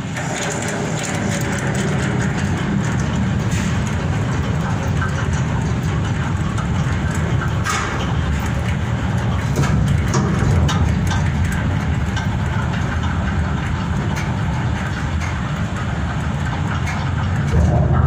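Steady heavy rumble of coal-loading machinery at a bulk carrier's hold, with scattered sharp cracks and clicks.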